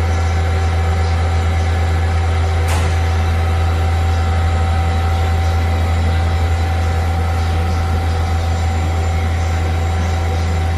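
A Nomura NN32YB2 CNC Swiss-type lathe running under power: a steady, loud low hum with a steady whine above it, and a single sharp click about three seconds in.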